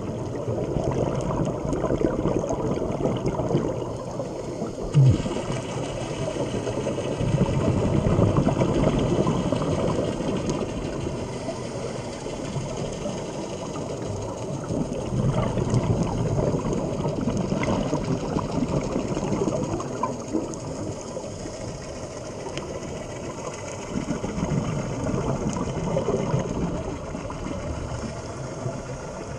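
Underwater noise picked up by a diver's camera on a scuba dive: a muffled, churning water sound that swells louder every several seconds, with a single knock about five seconds in.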